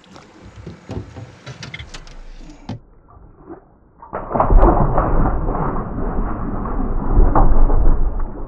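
Water splashing and sloshing in a boat's live well holding crappie, starting suddenly about four seconds in and staying loud; light knocks and rattles before it.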